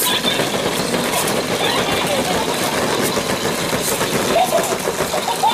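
Dense, continuous clatter of hollow plastic ball-pit balls knocking together as puppies scramble through them.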